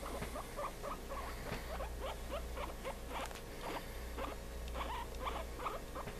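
Guinea pig squeaking: a rapid run of short, rising squeaks, several a second, over a low steady hum.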